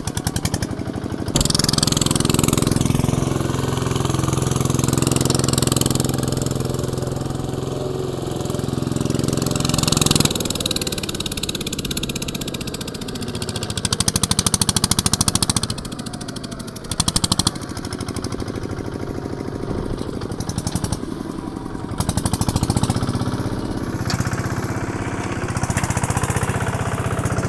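Kubota RT140 single-cylinder diesel engine of a two-wheel tractor running under load as it pulls a plough through deep mud. Its fast, steady beat swells louder and falls back several times as the load changes.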